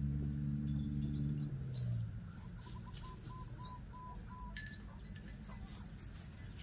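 Birds calling around the farmyard: short rising chirps every second or two, and a run of about seven quick even notes about two and a half seconds in. A steady low drone, the loudest sound at first, stops about a second and a half in.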